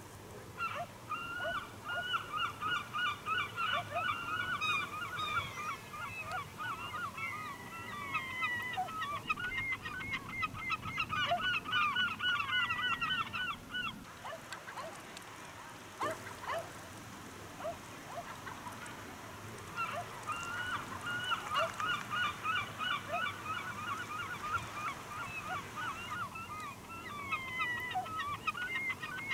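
A flock of birds calling over one another in fast runs of short, repeated calls. The calls die away for several seconds about halfway through, then start up again.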